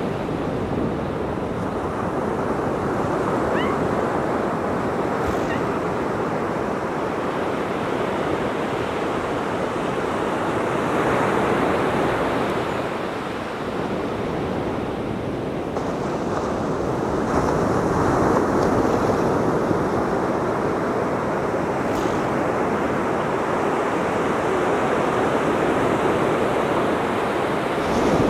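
Ocean surf washing onto the beach, a steady rushing noise that swells and eases every several seconds.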